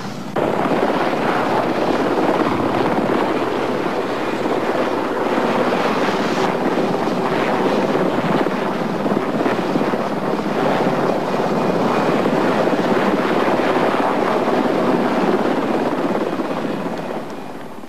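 Rescue helicopter hovering close overhead: loud rotor and engine noise mixed with its downwash buffeting the microphone. It starts abruptly just after the start and fades near the end.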